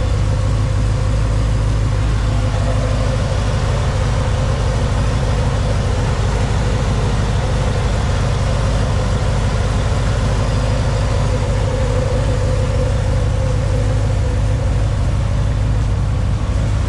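Ford SVT F-150 Lightning race truck's engine idling steadily, a deep even drone, running so the transmission fluid can be checked.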